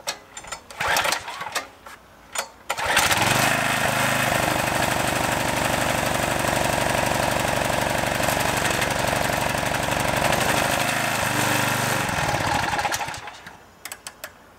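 A 6 hp Briggs & Stratton pressure-washer engine pull-started on full choke: a few rattling recoil pulls, then it catches and runs steadily for about ten seconds, sags, and stops about thirteen seconds in. This is the first start of the long-unused engine.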